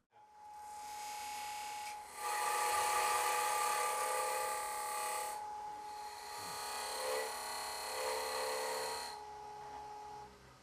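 Wood lathe spinning a wooden box blank with a steady whine, while a Robert Sorby TurnMaster cutter cuts a recess into the end grain in two passes of about three seconds each.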